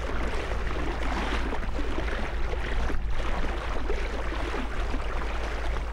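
Inflatable boat under way on an outboard motor: a steady low motor drone under continuous rushing and splashing of water against the hull.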